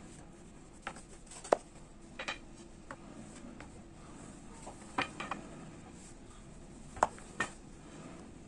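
A long thin wooden rolling pin rolling and knocking against a wooden tabletop as a sheet of dough is wound onto it and unrolled, giving scattered sharp clicks and taps, the loudest about a second and a half in and again about seven seconds in.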